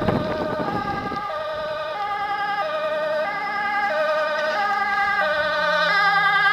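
Fire engine's two-tone siren alternating high and low about every two-thirds of a second, growing louder as the truck approaches on an emergency run. A short noisy rumble is heard in the first second.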